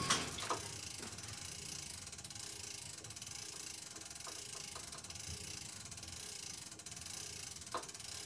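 Hand-cranked winch of a material lift being wound steadily, its ratchet pawl clicking rapidly as it takes up the cable to raise the load.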